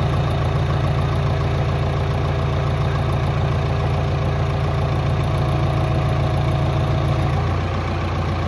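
JCB backhoe loader's diesel engine running steadily close by, a low, even drone that eases slightly near the end.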